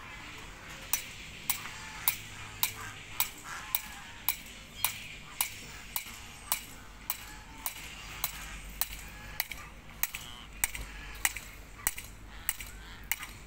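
Steel struck by a hammer in a steady, even rhythm of about two sharp metallic clinks a second.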